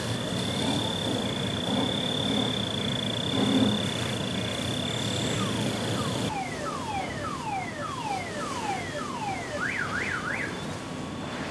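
Car alarm working through its tone cycle: a steady high tone, then a string of falling whoops about two a second, then a fast up-and-down warble near the end. Underneath is a steady hiss of hose spray and fire.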